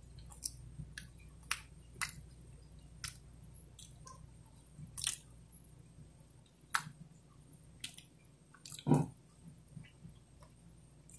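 A person chewing food, with irregular mouth clicks and smacks about once a second; the loudest, fuller one comes about nine seconds in.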